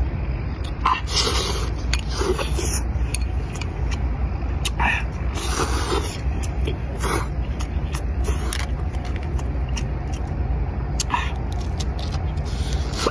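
Noodles being slurped and sucked up noisily in a series of short slurps, over a steady low rumble.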